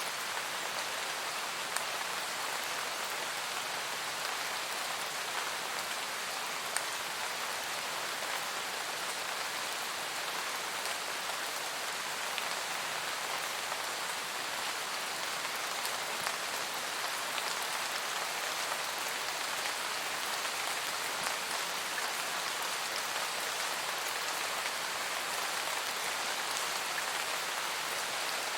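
Steady forest rain: an even hiss of many falling drops, with a single louder drop now and then.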